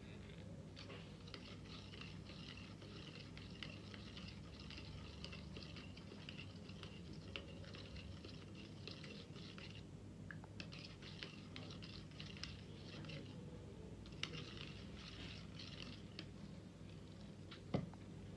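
Faint fine crackling with small clicks as a thick, powder-laden oil is poured and drains through a plastic funnel into a glass bottle. It comes in stretches with short breaks, over a steady low hum.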